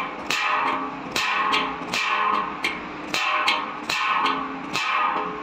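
Background guitar music, strummed in a steady rhythm.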